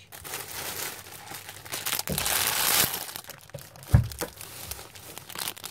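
Plastic wrapping on packets of loom bands crinkling as they are handled, loudest about two seconds in, with a single knock about four seconds in.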